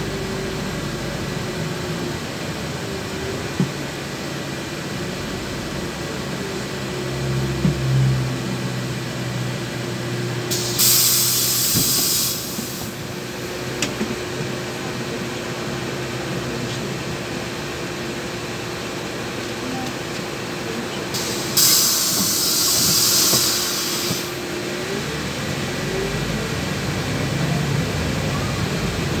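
Cabin noise inside a LiAZ 6213.21 articulated diesel city bus: a steady engine and road rumble with a constant whine, which stops near the end. Two loud hisses of compressed air from the bus's pneumatic system come about 11 and 22 seconds in, each lasting about two seconds.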